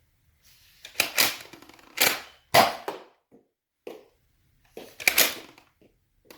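Nerf Rival Takedown pump-action blaster being primed and fired, a series of sharp plastic clacks and shots. One cluster of clacks falls between about one and three seconds in, and another comes around five seconds in.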